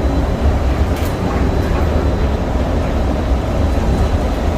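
Steady low rumble inside the DFW Skylink automated people-mover train as it runs at speed along its guideway.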